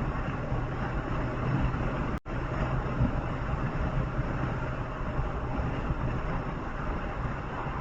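Steady road noise of a moving vehicle: engine and tyre rumble with a low hum. The sound cuts out for an instant about two seconds in.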